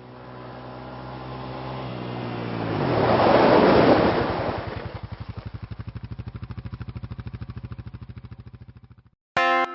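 A motor vehicle engine swells to a close pass-by about three seconds in, its pitch dropping as it goes by. Then comes a rapid, even pulsing that fades and cuts off suddenly near the end.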